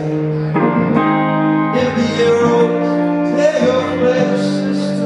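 Live solo rock song: strummed electric guitar holding chords that change every second or so, with a man singing over it.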